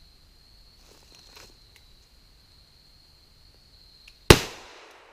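A single shot from a Smith & Wesson 22 Compact .22 LR semi-automatic pistol about four seconds in, sharp and loud, with a short ring-out after it.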